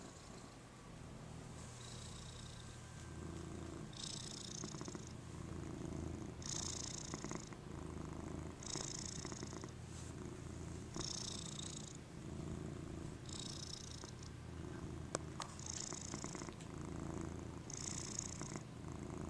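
Domestic cat purring steadily close to the microphone, the purr swelling and easing in a regular rhythm of roughly one breath every two seconds.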